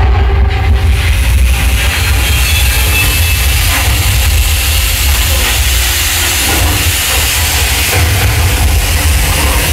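Simulated earthquake on a theme-park ride: a loud, steady low rumble, with hissing from spark and fire effects coming in about half a second in.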